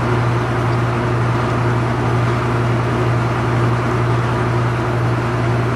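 Steady machine hum: a low drone under an even rushing noise, unchanging throughout.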